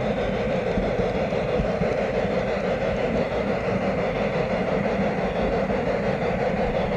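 Garden-scale logging train, a two-truck Shay locomotive pulling log cars, running along its track: a steady rolling rumble of wheels on rail, heard from on board a log car.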